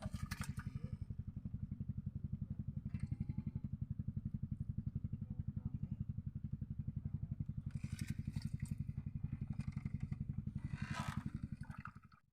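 A small engine running steadily with an even, rapid low pulsing, which stops abruptly near the end.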